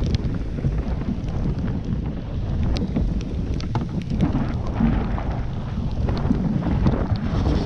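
Storm wind buffeting the microphone in a steady low rumble, with rain spattering and scattered sharp raindrop taps.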